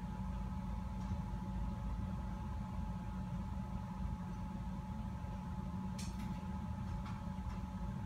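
Steady mechanical hum with a faint high whine, and two faint clicks about six and seven seconds in.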